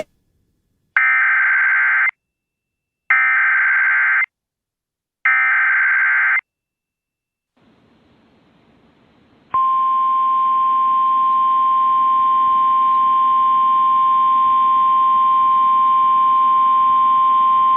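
Emergency Alert System header: three identical buzzy data bursts about a second long, a second apart. Then a faint hiss, and from about nine and a half seconds in a steady single-pitched 1050 Hz NOAA Weather Radio attention tone that holds to the end. This is the opening of a tornado warning broadcast.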